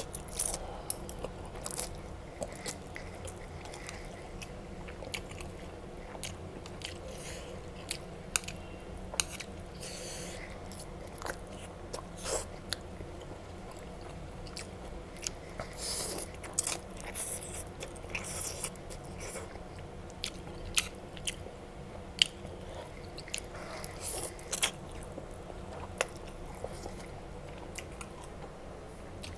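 A person slurping and chewing spicy instant noodles, with wet mouth sounds and sharp clicks at irregular intervals over a low steady hum.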